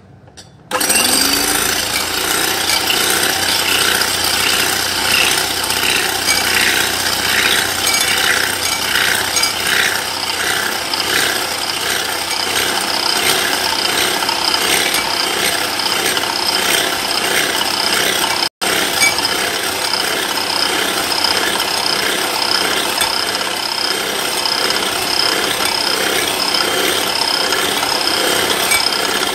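Electric hand mixer running at speed, its steel beaters whipping cream in a ceramic bowl with a steady motor whine and a faint, even rattle. It starts about a second in and cuts out for an instant about two-thirds of the way through; the cream is being beaten until it doubles in volume.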